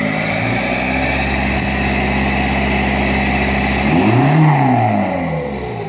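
Audi A3 engine held at steady revs, then blipped higher about four seconds in and let fall, with a falling whine as the revs drop. This is the turbo's 'turkey' sound on lift-off.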